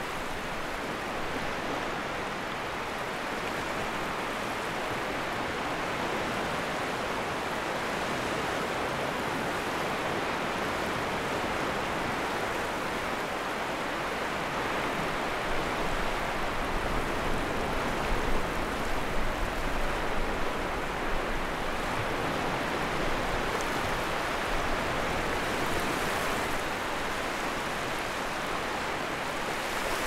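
Sea waves washing onto the shore in a steady rush, swelling louder with a low rumble a little past the middle.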